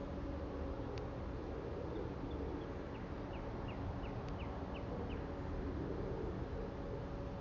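Steady low background rumble with a faint hum, and a bird giving a quick run of about eight short falling chirps, roughly three a second, around the middle.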